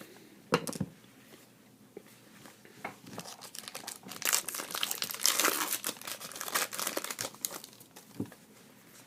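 Crinkling and rustling of trading-card packaging being handled, loudest in a dense stretch past the middle, with a sharp tap about half a second in.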